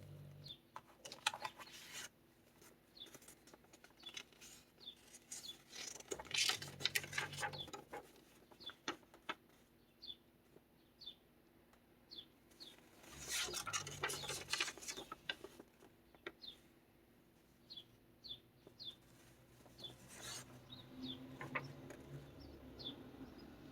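Paper pages of a handmade kraft-envelope junk journal being turned and handled, rustling in bursts a few seconds apart, with a dog snoring low in the background.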